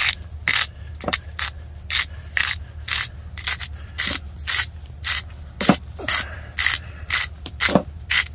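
Hand-twisted salt grinder grinding coarse pink rock salt: a steady run of short grinding scrapes, about two a second.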